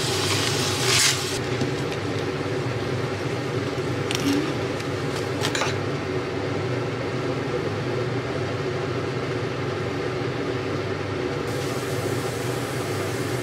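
A steady electric fan or motor hum runs throughout. Shrimp sizzle on a hot griddle for about the first second and a half. Light utensil clicks come around four and five and a half seconds in.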